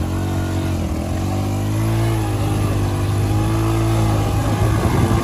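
Motorcycle engine revving hard and held under load while the bike is bogged down in deep wet mud, its rear wheel trying to drive it out. The pitch climbs about two seconds in and holds there, wavering near the end.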